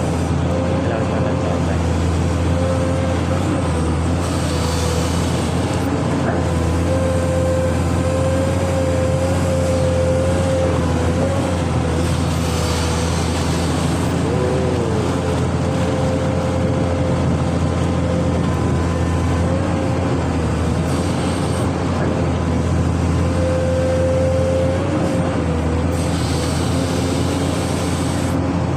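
Amphibious excavator's engine running steadily, with a thin whine above it that wavers slightly in pitch.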